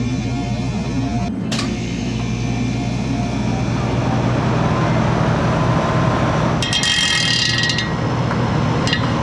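Walk-in cooler evaporator fan motors running: a steady hum with rushing air that builds slightly, from fans the technician suspects are not all turning at the same speed. A brief metallic rattle about seven seconds in, with a click near the start and another near the end.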